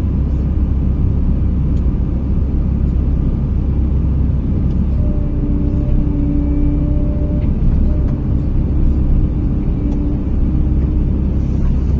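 Forestry crane running with a steady, loud low engine rumble; a steady whine joins in about five seconds in and fades out near ten seconds.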